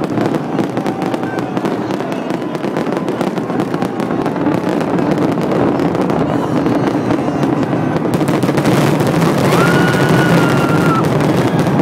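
Fireworks display: a dense run of crackling and popping from aerial shells and fountains, growing a little louder toward the end.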